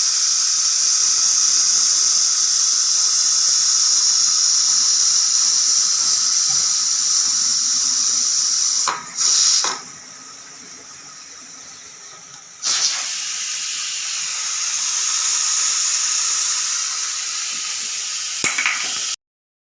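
Pressure cooker whistle venting steam in a loud, steady, high hiss. About nine seconds in it gives a brief burst and then sinks quieter for a few seconds. It comes back strong and cuts off abruptly near the end.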